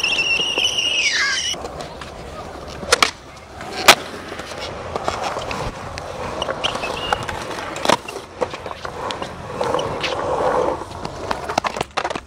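Skateboard wheels rolling, broken by several sharp clacks of the board, the loudest about four seconds in. A high squeal falls in pitch near the start.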